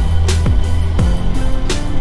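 Background music with drums and a deep bass over the footage.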